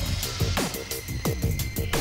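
Electronic music with a heavy beat and deep bass notes that drop in pitch on each hit.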